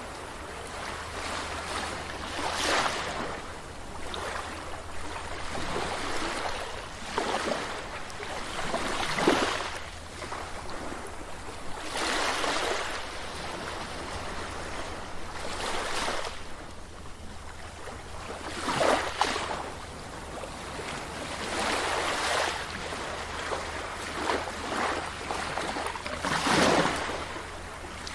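Sea waves breaking and washing on a beach, one surge after another every few seconds.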